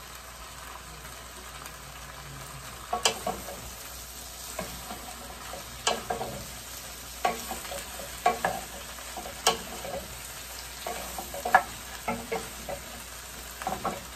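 Sliced mushrooms and carrot sizzling steadily in a hot frying pan, stirred with a wooden spatula that knocks and scrapes against the pan every second or two.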